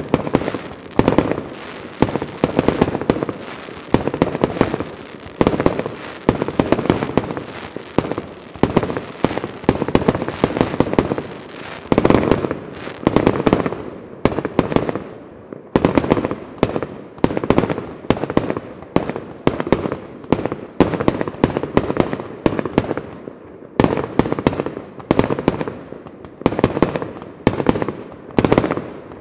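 Large professional fireworks display: a fast, unbroken barrage of aerial shell bursts, several sharp bangs a second, each trailed by its echo. It eases briefly about halfway through, then picks up again.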